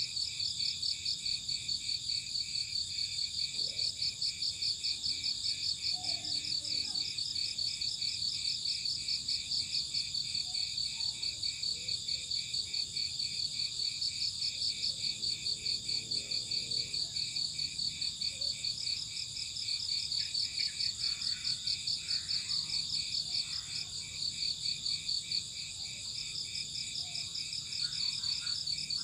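A chorus of crickets chirping in fast, even pulses, several pitches at once, with a few faint scattered calls lower down.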